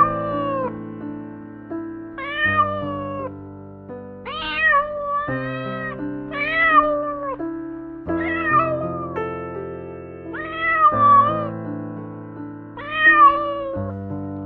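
A cat meowing over and over, short arching calls about every two seconds, over soft piano music.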